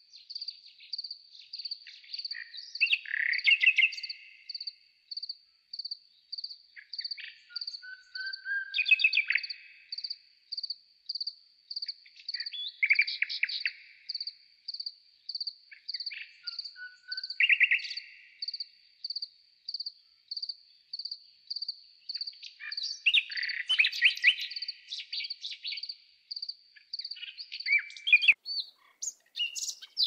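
Garden songbirds singing short trills every few seconds, with a couple of lower falling notes, over a high chirp repeated steadily about twice a second.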